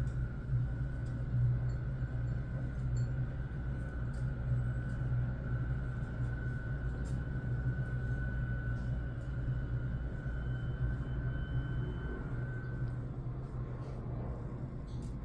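Steady low mechanical hum with a faint high whine that fades out near the end, and a few faint clicks.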